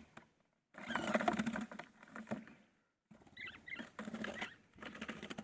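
Small wild birds scrabbling and rustling in their cage as they are handled for release, followed by a string of short bird calls in quick succession.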